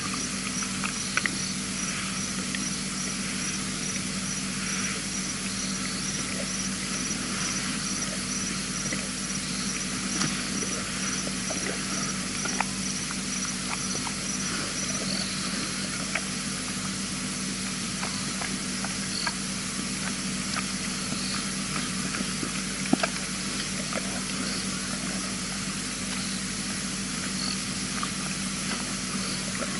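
Night-time outdoor ambience: insects chirping, with a fast pulsing trill through the first half and a separate short chirp every couple of seconds, over a steady hiss and a low hum. Scattered faint clicks come and go.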